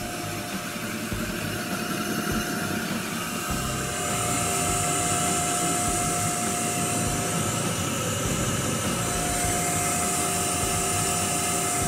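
Fuji Paudal Marumerizer spheronizer running under power: its electric drive motor and spinning plate make a steady hum with a whine, growing louder about four seconds in.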